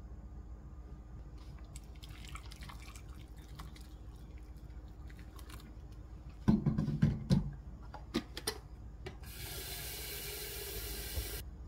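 A cluster of loud knocks and clatter, then hot water running for about two seconds near the end and cutting off abruptly. The water is rinsing cubes of Spam in a bowl.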